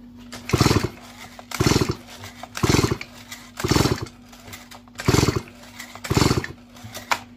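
Chainsaw recoil starter pulled six times, about once a second, each pull a short whirr of the cord and flywheel spinning the engine over with the spark plug out. The engine is being cranked to fire an inline spark-gap tester in a check of the ignition coil.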